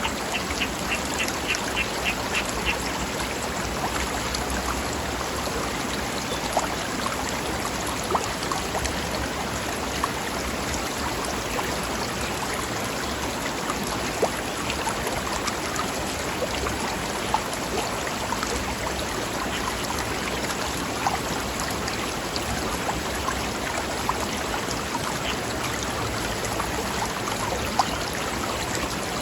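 Stream water running steadily over rocks, with a bird giving a quick series of about a dozen short, repeated high calls in the first few seconds.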